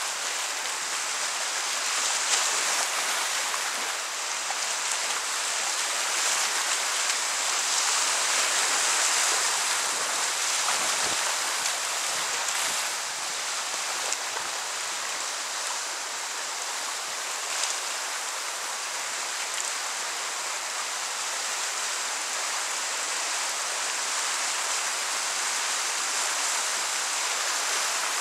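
Whitewater river rapids rushing and splashing steadily, heard up close from a kayak running through them.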